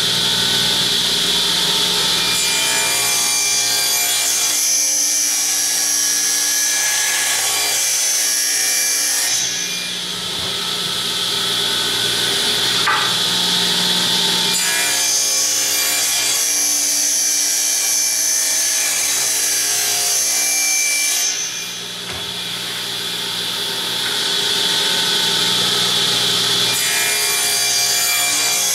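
Table saw running and ripping boards into narrow cabinet rails, the blade cutting steadily through the wood. Twice the high whine drops away for several seconds and the sound runs lower.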